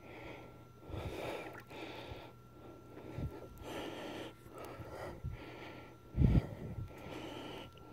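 A man breathing hard, tired, about one breath a second, with a low thump about six seconds in that is the loudest sound.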